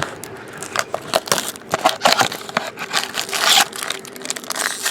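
Foil trading-card pack wrapper crinkling in quick, irregular bursts as it is handled and opened.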